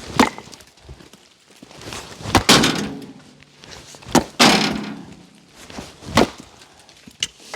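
Collins axe with a hickory handle chopping small cherry wood chunks into smaller pieces: about five sharp strikes a second or two apart.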